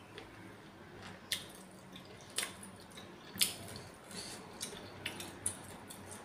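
Close-miked eating sounds: chewing a mouthful of meatball soup, with sharp wet mouth clicks about once a second.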